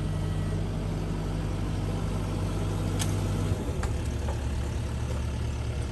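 Excavator's diesel engine running steadily as its attachment holds a seawall piling. Its note changes about three and a half seconds in, with a couple of sharp clicks just before and after.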